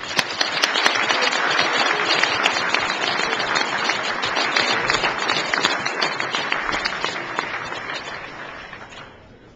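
Audience applauding: dense clapping that starts at once, holds steady, and dies away about nine seconds in.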